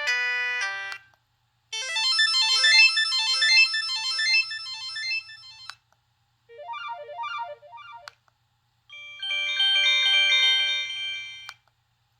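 Preloaded ringtones on a Kyocera KX9B phone, played one after another. The tail of one ringtone ends about a second in, then three short electronic melodies follow, each stopping abruptly after a few seconds with a brief silence before the next.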